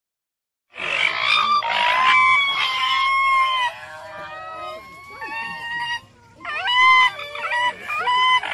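Raccoon dogs calling in high, wavering whines and yelps, with several calls overlapping. The calls start about a second in, drop quieter in the middle, then grow loud again near the end.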